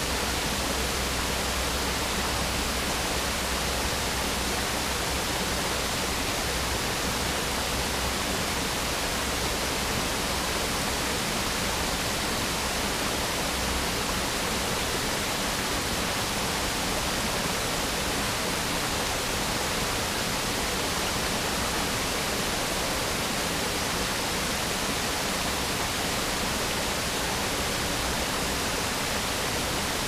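Waterfall pouring over a low stone dam, with water rushing over rocky riffles below: a steady, even rush. A deep rumble underneath drops away about halfway through.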